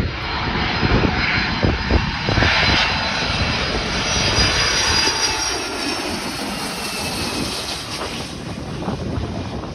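Boeing 757 jet airliner passing low overhead on its landing approach, its twin engines swelling to a peak with a high whine and then fading away.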